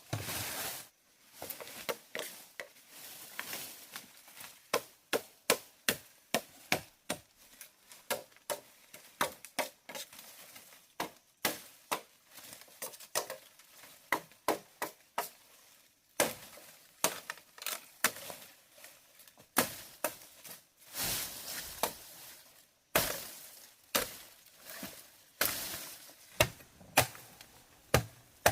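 Repeated sharp chopping knocks and cracks, irregular at a few strokes a second with short pauses, mixed with a few crunching, breaking sounds.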